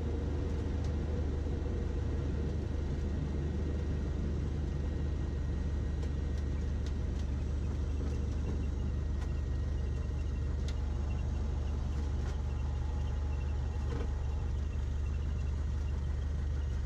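Cessna 152's four-cylinder Lycoming engine and propeller at idle, heard from inside the cockpit as the plane rolls out after landing and slows to taxi speed. A steady low, even sound.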